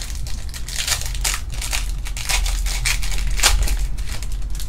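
Foil wrapper of a Panini Prizm UFC trading-card pack being torn open and crinkled by hand, a run of irregular sharp crackles.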